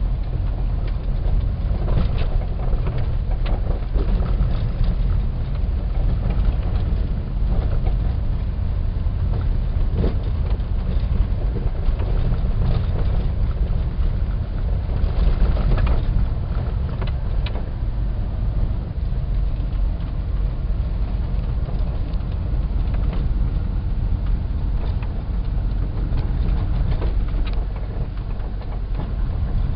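VW bus driving along a narrow lane, heard from inside the cab: a steady low engine and road drone with scattered rattles and knocks.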